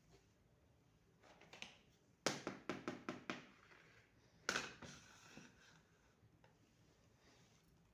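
Small hard plastic toy kitchen pieces being handled: a quick run of five or so sharp clicks and taps a little past two seconds in, then a single louder clack at about four and a half seconds, with quiet between.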